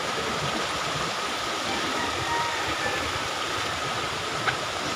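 Shallow river rushing over rocks: a steady, even rush of flowing water.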